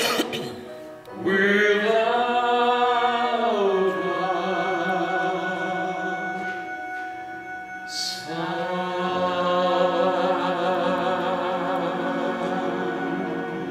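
A man and a woman singing a duet into microphones over instrumental accompaniment, holding long notes with vibrato toward the close of a slow Christmas ballad.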